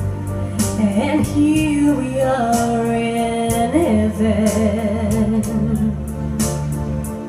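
A woman singing live into a microphone over backing music with a steady beat. She holds long notes, with a wavering vibrato on a sustained note about four seconds in.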